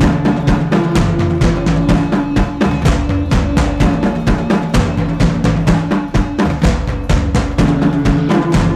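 Music with a fast, steady drum-kit beat of bass and snare over held low notes.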